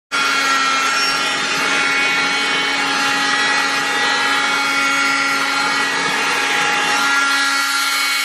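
Oscillating cast saw running steadily: a loud motor whine made of several steady tones that holds unchanged, then starts and stops suddenly.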